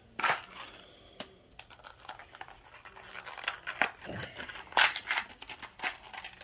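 Plastic parts bag being handled, crinkling and rustling with light clicks of small crimp terminals, in irregular bursts that are loudest about five seconds in.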